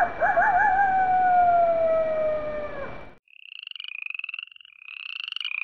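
Night sound effect: a wolf howl, one long call that wavers at first then slides slowly down, cutting off about three seconds in. It is followed by rapid, higher trilling calls repeated in clusters.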